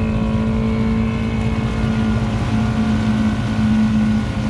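ATV engine running steadily with a constant pitch, the quad stuck deep in a mud hole while it is worked free, a little louder about three and a half seconds in.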